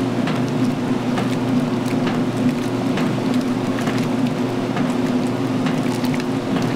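Magic Chef 20-pound washing machine in its wash phase: the motor hums steadily while water churns and splashes in the tub.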